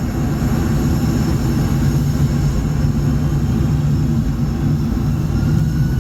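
Boeing 747-400 heard from inside the cabin: a loud, steady low rumble of the jet engines and airframe, with faint steady high-pitched tones above it.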